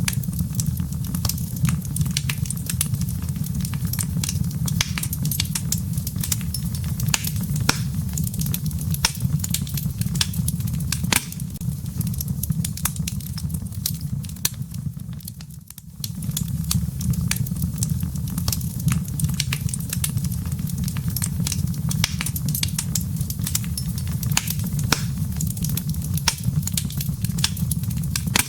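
Wood fire crackling in a fireplace: many sharp snaps and pops over a steady low rumble. The sound briefly dips about halfway through.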